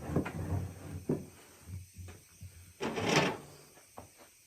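Wooden chair parts being handled on a bench: a few sharp knocks of wood on wood, the clearest about a second in, and a rustling scrape around three seconds in.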